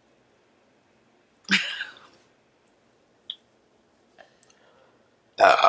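A person bloated from chugging soda makes a short throaty noise about a second and a half in, then a louder burp near the end, the burp that loses the no-burping challenge.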